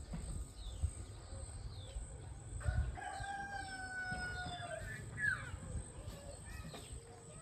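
A rooster crowing once, a long drawn-out call about two and a half seconds in that holds its pitch and falls away at the end. Small birds chirp faintly around it.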